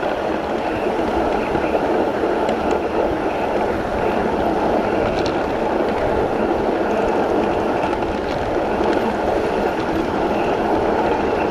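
A 1-inch-scale live-steam Pacific locomotive and its tender running along the miniature track, heard from on board: a steady, even rolling noise with no distinct beats.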